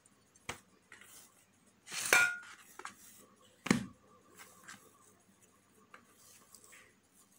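A glass mixing bowl knocked against a stone countertop while risen dough is turned out of it: a sharp knock with a brief glassy ring about two seconds in, then a heavier dull knock a little later. Afterwards only faint soft sounds of hands pressing the dough.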